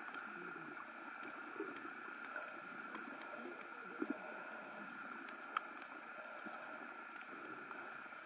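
Underwater ambience picked up by a submerged camera: a steady hiss with a few faint clicks, two close together about four seconds in and a sharper one about five and a half seconds in.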